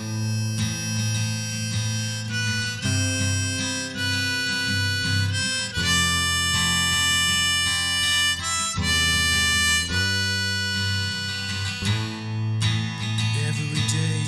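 Harmonica playing a melody of long held notes over acoustic guitar accompaniment, an instrumental passage of a folk song with no singing.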